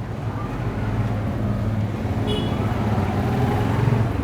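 Steady motor-vehicle engine hum from street traffic, getting slightly louder near the end, with a brief high-pitched squeak about two seconds in.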